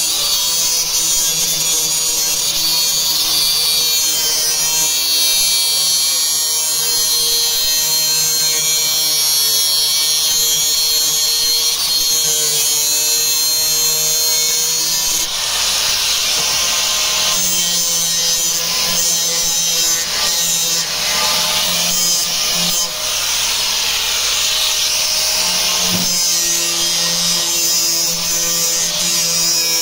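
Electric angle grinder running continuously, its disc grinding along the steel edge of a car door with a steady motor whine under a harsh metal-on-disc hiss. The grinding gets harsher and more uneven from about halfway through.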